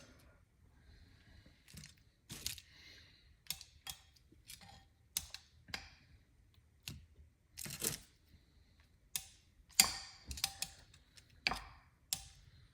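Light clicks and taps of kitchen handling, about a dozen and a half at uneven spacing, as chicken bites are dipped into the marinade.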